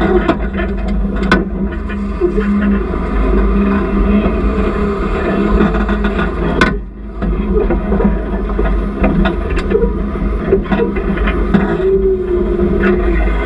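Off-road vehicle's engine running steadily at low speed while crawling over rocks, with a couple of sharp knocks from the rough trail.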